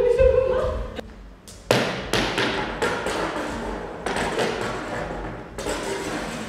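Hula hoops spinning and rolling on a wooden floor: a quick, uneven run of taps and thumps as the hoops strike the boards, starting suddenly about two seconds in.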